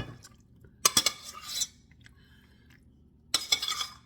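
A metal utensil scraping and knocking against a pan in two short bouts, one about a second in and one near the end, as food is scraped out of it.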